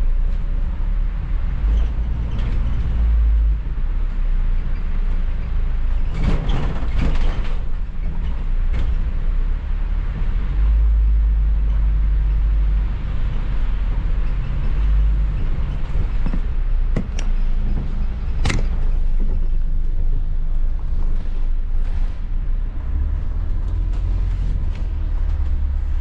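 Inside a moving double-decker bus's upper deck: a steady low engine and road rumble, with a few sharp knocks and rattles, the loudest about two-thirds of the way through.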